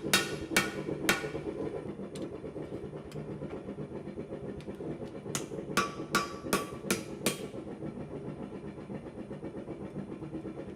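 Blacksmith's hammer striking hot steel on the anvil while folding over the axe body. Three blows come in the first second, then a pause, then a quicker run of about six ringing blows past the middle. A steady low hum runs underneath.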